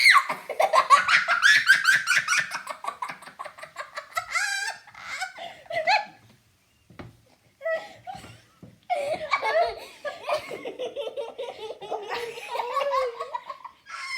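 People laughing hard in long, helpless fits after being startled by a bursting bag, dying down about six seconds in and breaking out again a few seconds later.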